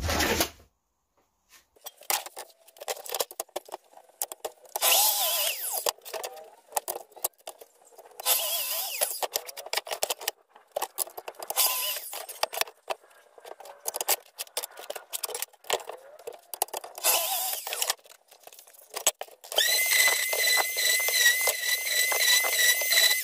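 A plunge saw on a guide rail cutting plywood in four short runs, with knocks and clatter between cuts as the rail and saw are repositioned. Near the end an orbital sander starts and runs with a steady whine.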